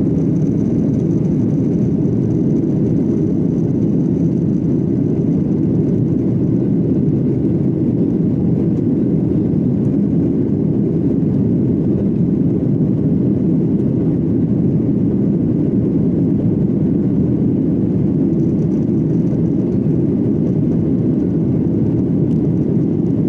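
Airliner cabin noise during take-off: a steady, even roar of the jet engines and rushing air, heard from inside the passenger cabin.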